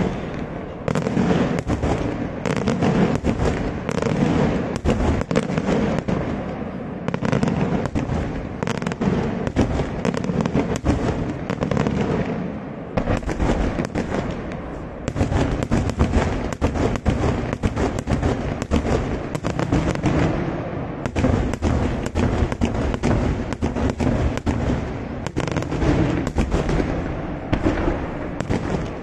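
Daytime fireworks display: a dense, rapid barrage of overlapping bangs from aerial shells bursting overhead, slackening briefly twice.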